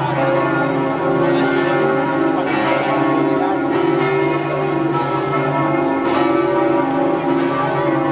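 Church bells of the Campanile di San Marco ringing together in a continuous peal, several large bells overlapping.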